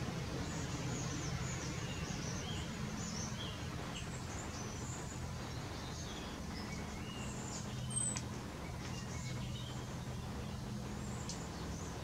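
Small songbirds chirping, with many short, high calls scattered throughout and one sharp, higher call about eight seconds in, over a steady low hum.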